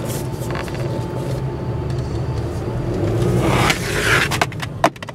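Inside a moving car at low speed: steady engine and road noise, with a louder rush building a little past halfway. Near the end come a few sharp clicks and a knock, after which the noise drops.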